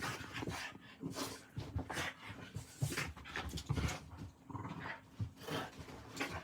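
Two dogs, one a puppy, play-fighting: short, irregular dog noises mixed with scuffles and knocks.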